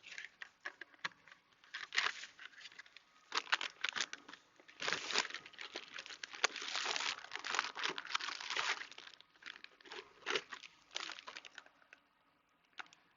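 Plastic packaging crinkling and rustling as it is handled, in irregular bursts mixed with small clicks and taps, dying away near the end.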